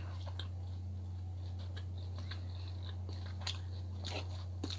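Close-up chewing of a mouthful of Brussels sprout: scattered wet mouth clicks, a few more of them near the end, over a steady low hum.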